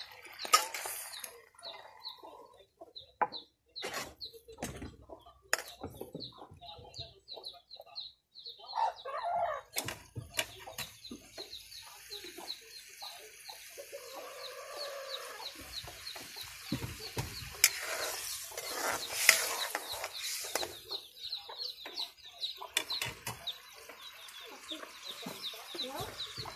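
Chickens clucking, over a steady run of quick high chirps about four a second, with occasional sharp clinks of a metal ladle against a steel pot.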